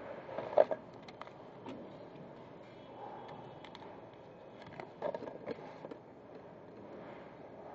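Steady factory background with sharp clicks and knocks of parts being handled during spreader assembly, in two short clusters: one about half a second in, which is the loudest, and one about five seconds in.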